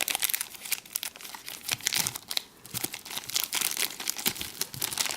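Thin plastic packaging bag crinkling as it is handled, in quick irregular crackles.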